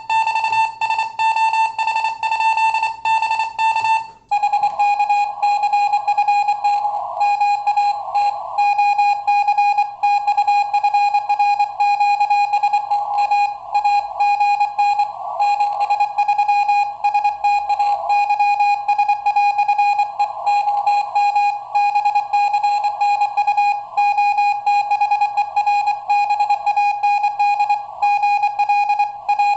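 Morse code (CW) on an amateur radio: a single pitched beep keyed on and off in rapid dots and dashes. About four seconds in, the tone drops slightly in pitch and a band of hiss appears around it.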